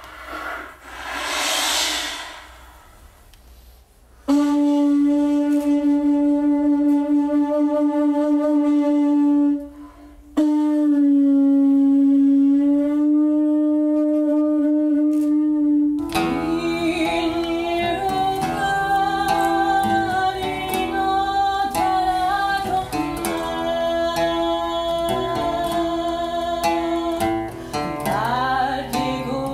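Sicilian folk music. It opens with a brief swell of breathy noise, then a wind instrument holds two long steady notes. About halfway through, a band with plucked strings and percussion comes in playing the tune.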